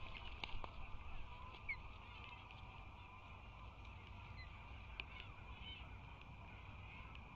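An osprey landing on a stick nest: a few light knocks and rustles about half a second in, over a faint steady hum and low rumble from the nest camera's microphone.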